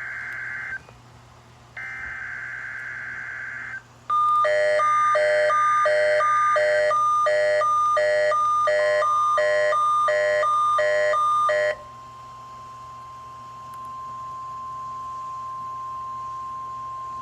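Weather radio emergency alert test signal: two short bursts of screechy SAME digital header data, then loud electronic alert beeping at about two beeps a second. A steady single tone comes in partway through the beeping and holds after it stops.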